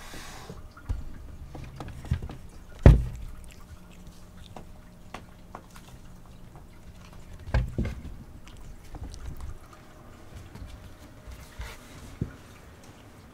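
Cat and kitten scuffling on a wooden shelf: scattered thumps and knocks of paws and bodies on the board, the loudest one about three seconds in, another cluster just before eight seconds and a sharp knock near twelve seconds.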